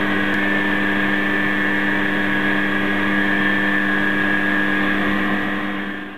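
A Quantum D 210 x 400 Vario lathe converted to CNC running, a steady whine of several held tones. It fades out near the end.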